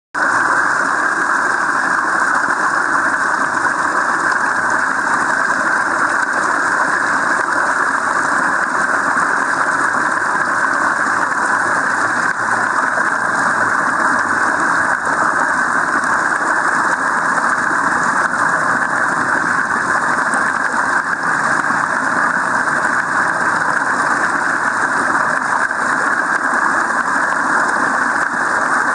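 Steady, unbroken rush of stream water flowing over a shallow slope.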